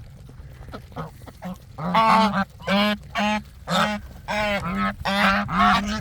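Geese honking while being fed: a quieter spell, then a run of about eight loud honks from about two seconds in.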